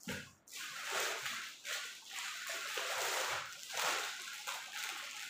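Clear plastic clothing packaging crinkling and rustling as it is handled and unwrapped, starting suddenly and going on in irregular swells.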